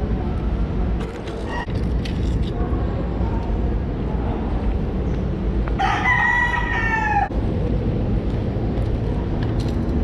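A rooster crows once about six seconds in, a single call of about a second and a half, over a steady low rumble.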